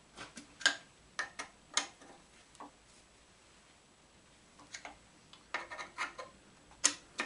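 Sharp metal clicks and taps of a hex key being seated in and turning the screws that hold the retaining strips on the shaper's main casting, in two bursts of several clicks each, one at the start and one near the end.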